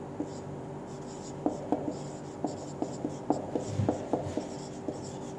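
Marker pen writing on a whiteboard: a run of short squeaks and taps as letters are stroked out, starting about a second and a half in, over a steady low hum.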